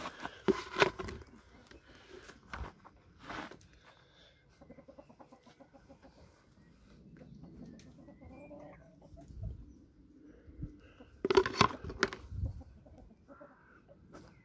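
Backyard chickens clucking and calling, with a louder cluster of calls at the start and another about eleven seconds in.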